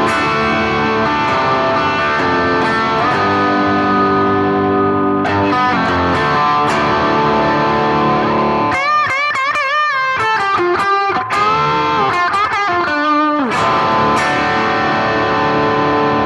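Epiphone Casino with P90 pickups played through a BOSS GT-1000 X-Crunch high-gain patch: distorted electric guitar ringing out sustained chords. From about nine seconds in to about thirteen it plays a lead lick with string bends and vibrato, then goes back to chords.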